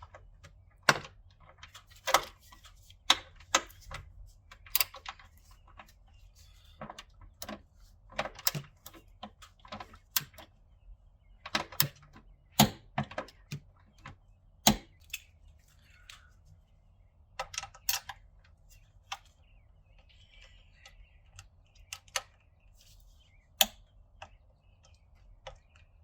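Ratchet-head torque wrench clicking in short, uneven runs as the pitch stop mount bolts are tightened down to torque spec.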